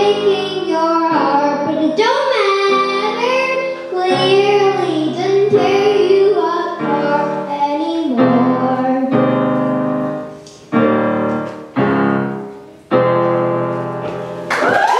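A young boy singing into a microphone while accompanying himself on a Yamaha digital stage piano. The singing stops about nine seconds in, and the song ends on four held piano chords, each fading before the next.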